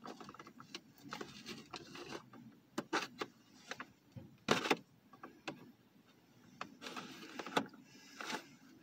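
An action figure's cardboard-and-plastic blister package being handled and pulled open: scattered crinkles, rustles and clicks, with a sharper one about four and a half seconds in and another near the end.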